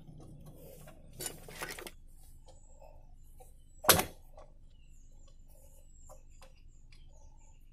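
Faint metallic scraping and small ticks as a steel brake-shoe return spring is worked into place with a screwdriver on a drum brake, with one sharp metallic click about four seconds in.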